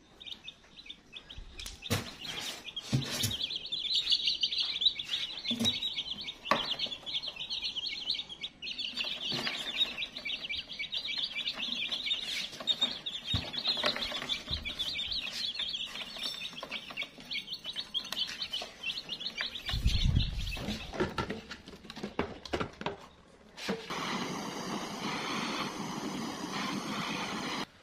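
A brood of young chicks peeping continuously and shrilly, with scattered knocks and rustles as they are handled. About 24 s in, the peeping gives way to a steady hiss that runs to the end.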